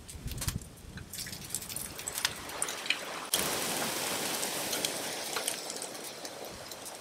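Bacon sizzling and spitting on a hot griddle plate, with light clicks of tongs against the plate. The sizzle gets suddenly louder a little past three seconds in, then slowly eases off.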